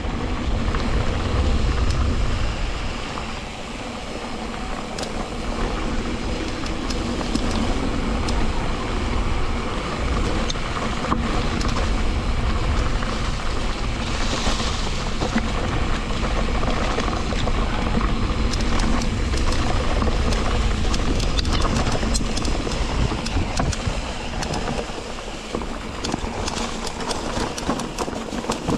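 Riding noise from an electric mountain bike on a trail: wind rumbling on the chest-mounted action camera, tyres running over rough ground, and a steady rattle of small clicks from the bike.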